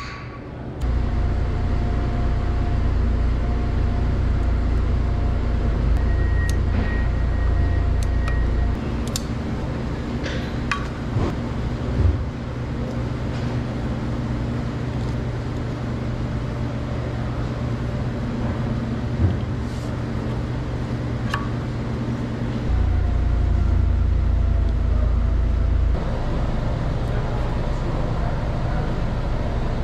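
A forklift running steadily. It gets louder, with a faint steady whine, for several seconds near the start and again near the end. A few sharp metal clinks sound over it.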